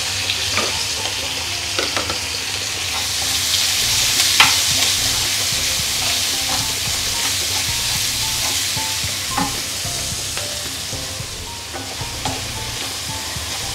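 Chopped onion, garlic, ginger, green chilli and curry leaves sizzling in hot coconut oil in a frying pan while they are stirred with a wooden spatula. The sizzle is steady, with a few light knocks of the spatula against the pan.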